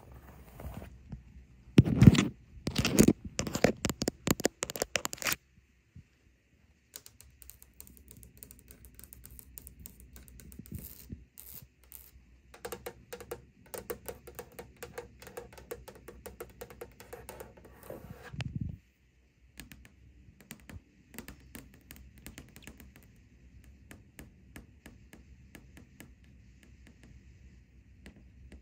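Long fingernails scratching and rubbing over bed sheets, loudest in the first few seconds, then lighter nail tapping and scratching on harder surfaces, with sparse, quieter taps in the last third.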